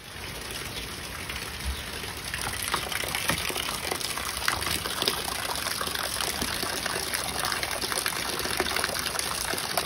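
Steady rain falling, a continuous hiss full of many small drop ticks.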